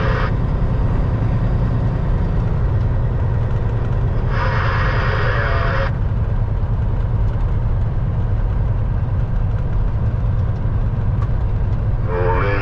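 Cab-interior drone of a Peterbilt 379's CAT C15 diesel cruising down the road. Just over four seconds in, the CB radio speaker gives a short burst of static hiss lasting about a second and a half.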